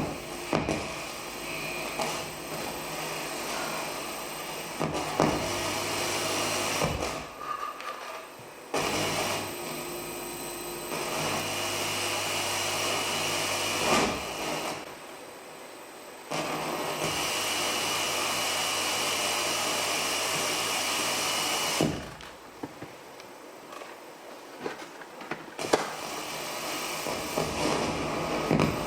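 Live experimental sound-art drones: dense, grinding, machine-like noise with steady tones, in blocks that cut in and out abruptly. There is a dip about 7 s in and a quieter stretch from about 22 to 26 s. A few sharp clicks are scattered through it.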